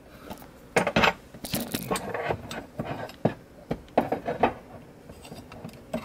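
Steel Allen keys in a plastic fold-out holder being handled, clicking and clinking against each other and the holder in an irregular string of short knocks as one key is worked out.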